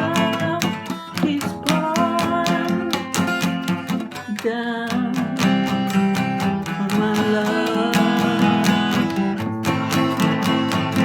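Acoustic guitar strummed in a steady rhythm, with a voice singing a wavering melody over it in places.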